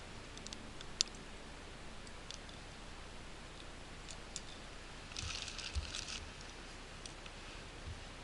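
Quiet handling noises: a sharp click about a second in, scattered small ticks, and a rustle lasting about a second about five seconds in.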